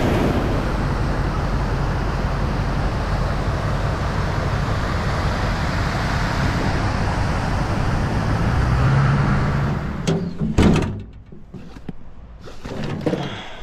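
Steady rushing noise that cuts off about ten seconds in. A few sharp knocks and clatters follow as a pickup truck's tailgate is opened and fishing gear in its bed is handled.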